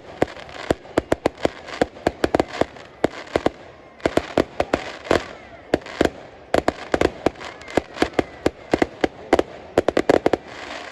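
Professional fireworks display: a rapid, irregular string of sharp bangs, several a second, in clusters with short lulls about four and six seconds in.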